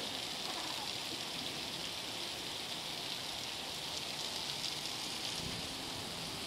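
Heavy rain falling steadily as an even hiss, with muddy floodwater running down the street.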